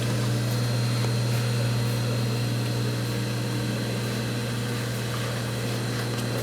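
The motor of a Brother LT2-B875 double-needle industrial sewing machine running, a steady low hum with a few faint ticks.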